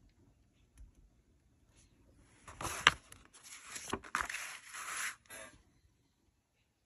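Paper rustling as glossy magazine pages are handled and turned, with two sharp snaps about a second apart in the middle.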